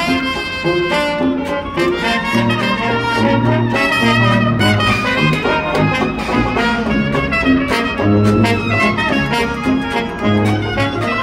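Live traditional New Orleans jazz band: trumpet, trombone and clarinet playing the melody over a sousaphone bass line, with banjo and guitar strumming and a washboard keeping a steady beat. The room gives it a strong reverb.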